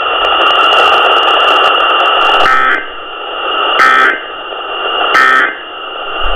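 Radio static hiss, then three short bursts of EAS digital data tones, a harsh buzzing screech each time: the end-of-message code that closes the emergency alert broadcast.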